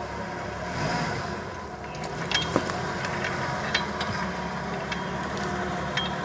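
Jeep Wrangler YJ engine running at low revs as the Jeep crawls over rocks, swelling briefly about a second in. Several sharp clicks and knocks sound over the engine.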